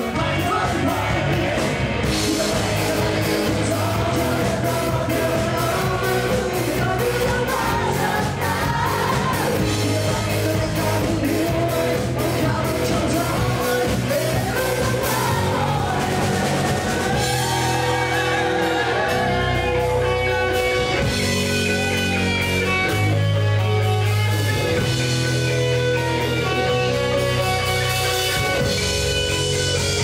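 Live rock band playing loudly: a man singing into the microphone over amplified electric guitar and a drum kit.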